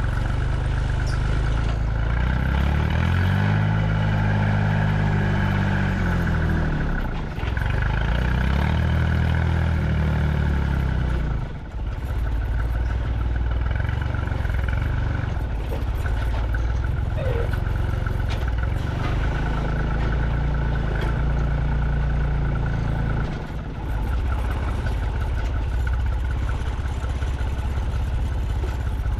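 Delivery truck engine while driving, its pitch climbing twice in the first dozen seconds with short dips between, as with gear changes, then running at a steady pitch with another brief dip about two-thirds of the way through.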